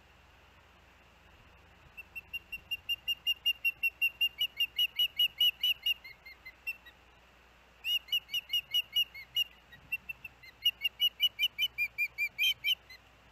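Osprey calling: rapid runs of high, whistled chirps, about five or six a second, in three bouts separated by short pauses.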